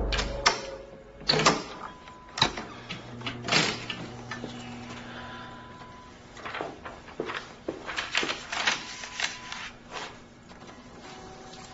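Scattered footsteps, sharp clicks and knocks, and the rustle of a sheet of paper being handled against a door and then a metal safe, over a faint steady hum. The sounds come singly in the first few seconds and cluster more densely in the second half.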